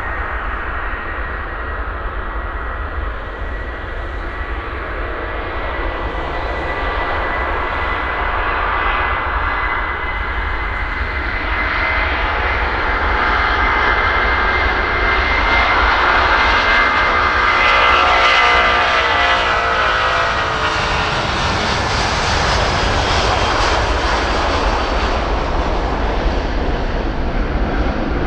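Airbus A330 twin jet engines at take-off thrust: a steady high whine over a broad roar and low rumble. The sound grows louder as the aircraft passes, peaking about two-thirds of the way through, with a sweeping, phasing quality while it goes by.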